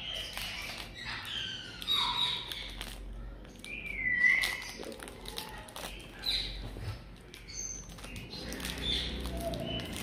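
African grey parrot giving short whistles and chirps, some gliding down in pitch, among the crinkling and clicking of a chocolate wrapper that it is picking over.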